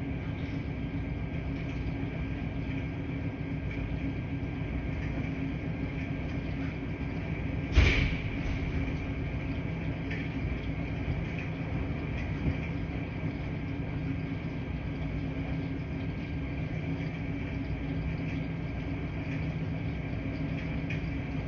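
Washing machines running with a steady low rumble and hum. One loud clunk about eight seconds in, and a few faint clicks.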